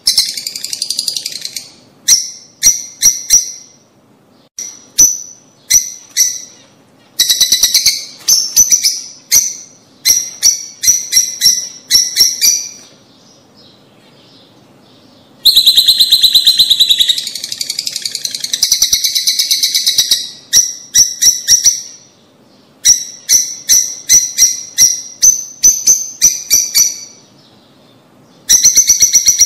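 Lovebirds calling in bouts of rapid, shrill chirps, each bout lasting a second or two, with short pauses between them and a longer lull about halfway through.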